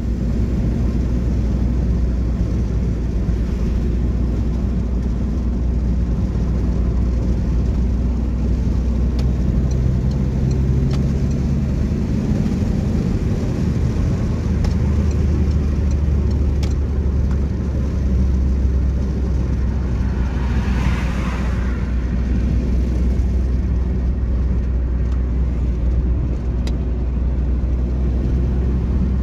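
A car driving: a steady low engine and road rumble, with a short hiss that swells and fades about twenty seconds in.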